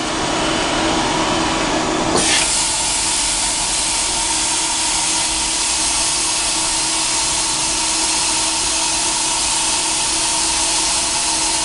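ARIX CNC vertical milling machine running its automatic tool-setter measuring cycle, the spindle head feeding down toward the tool setter. Steady machine hum under a hiss that turns suddenly louder about two seconds in and then holds.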